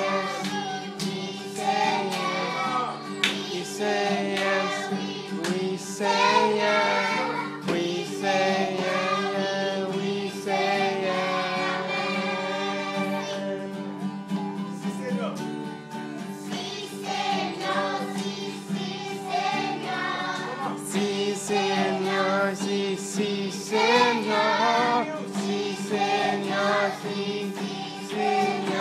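A group of children singing a worship song together, accompanied by a strummed guitar.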